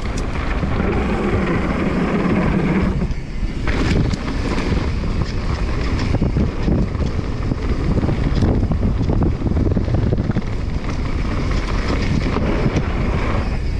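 Mountain bike descending fast on a dirt trail: heavy wind buffeting on the action-camera microphone over the rumble of tyres on dirt and gravel, with frequent short clicks and clatters from the bike over bumps. The noise dips briefly about three seconds in.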